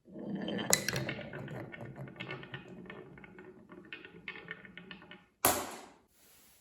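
Marbles rolling and clattering down a wooden marble run track: a dense rattle of clicks with one loud knock near the start, thinning to separate clicks, then a sharp, loud clatter about five and a half seconds in that fades away.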